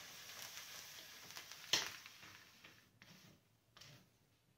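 Roller blind's fabric rustling steadily as it is drawn out across a skylight with a hook pole, with one sharp click a little under two seconds in and two fainter knocks near the end.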